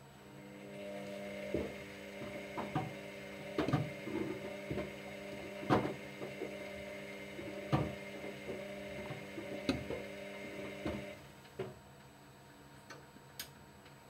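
Washer-dryer drum motor starting and running with a steady hum as the drum turns the laundry, with irregular knocks from the tumbling load. The motor stops about eleven seconds in as the drum pauses.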